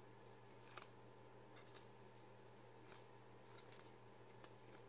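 Near silence: faint ticks of glossy trading cards being handled and shuffled by gloved hands, over a low steady hum.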